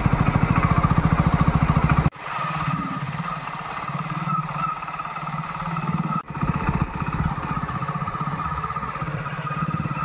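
A motorcycle engine running at a steady cruise with an even low firing beat as it rides along a dirt lane. It drops abruptly to a quieter level about two seconds in, and there is a brief dropout about six seconds in.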